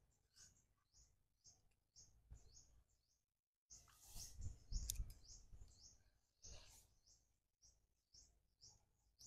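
Faint, repeated high chirps of a small bird, about two a second, over near silence, with a brief faint rustle about four seconds in.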